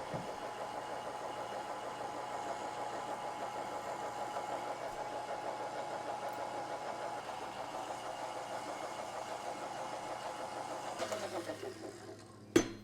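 Electric stand mixer motor running steadily, mixing flour into yeast dough. It winds down near the end, then there is a single sharp click.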